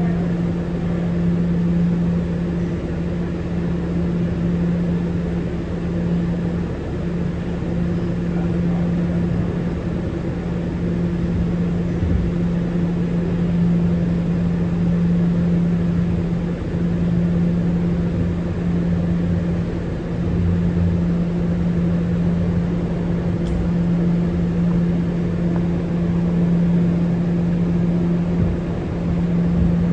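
R211A subway car running at steady speed, heard from inside the car: a constant hum over the rumble of the wheels on the rails. A single faint click comes about three-quarters of the way through.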